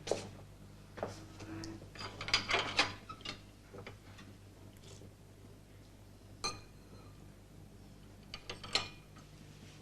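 Irregular clinks and taps of crockery and cutlery, a few single knocks and a short cluster of clinks about two to three seconds in, over a steady low electrical hum.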